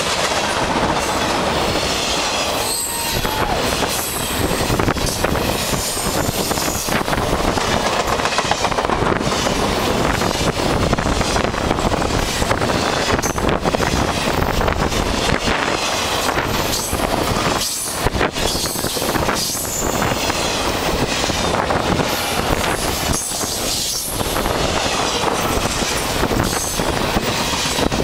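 Freight train's intermodal cars rolling past at speed close by: a steady, loud rumble of steel wheels on rail with clickety-clack over the rail joints. Brief high wheel squeals come now and then.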